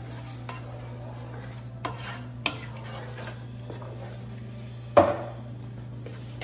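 Wooden spoon stirring cooked sweet potato leaves in a pot, scraping and clicking lightly against the pot, with one sharp knock about five seconds in, the loudest sound.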